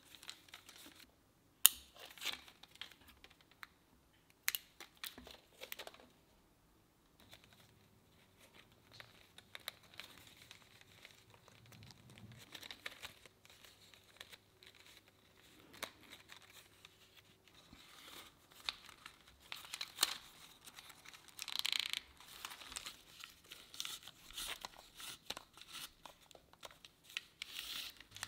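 Strips of dry birch bark crinkling and scraping as they are handled and woven into a plaited sheath, in faint, scattered rustles with a sharp click about a second and a half in.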